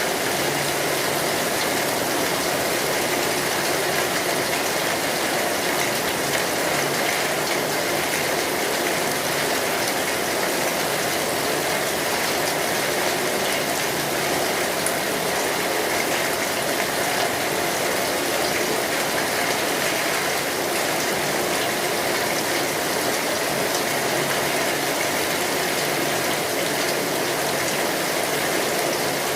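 Steady rain falling on a metal roof, mixed with the crackle of a fire.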